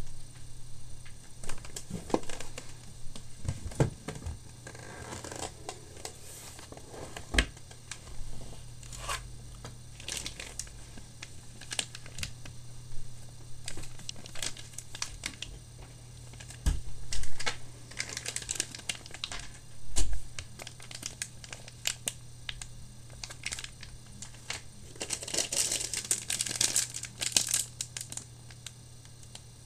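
Hands handling plastic-bagged motherboard accessories, SATA cables and an I/O shield: plastic bags crinkling and tearing with scattered clicks and taps, a couple of heavier thumps in the middle, and a dense burst of crinkling near the end. A steady low hum runs underneath.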